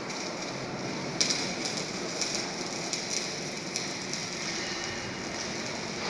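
Steady background noise of a large factory hall where mixer truck drums are welded, with scattered short sharp clicks.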